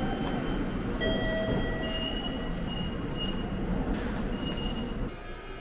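Railway station ticket-gate ambience: a steady hum of the concourse, with short electronic beeps and tones from the automatic ticket gates. The background noise drops about five seconds in.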